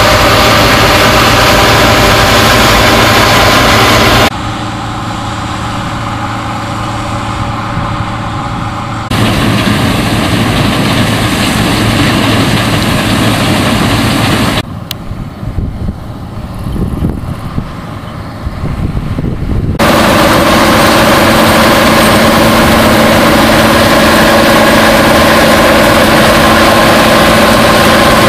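Bizon Super Z056 combine harvester running while threshing rapeseed: a steady hum from its diesel engine mixed with the rattle of the threshing machinery. The level drops abruptly twice, quietest and most uneven just past the middle, and comes back up each time.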